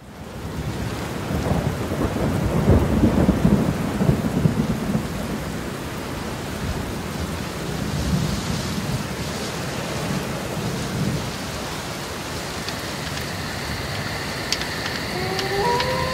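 Steady heavy rain with rolling thunder, the rumble loudest a few seconds in. Near the end, a few sharp clicks and faint steady high tones come in over the rain.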